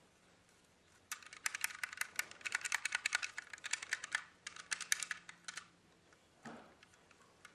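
LEGO plastic parts clicking and rattling rapidly as a LEGO-built lock is handled and its Technic beam mechanism worked by hand, in two runs of quick clicks, then a soft knock near the end.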